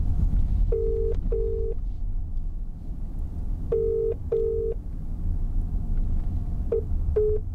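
Telephone ringback tone through a car's speakers as an outgoing call rings out: two double rings about three seconds apart, each a pair of short, low, buzzy tones. Near the end comes a run of shorter beeps. Road rumble from the moving car runs underneath.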